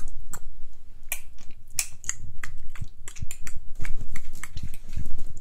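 A toddler clicking her tongue: a string of sharp mouth clicks, irregularly spaced at about two or three a second.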